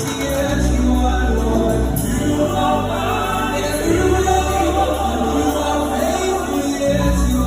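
Gospel worship music: a choir singing over a band with a deep, sustained bass line whose notes change about four and seven seconds in.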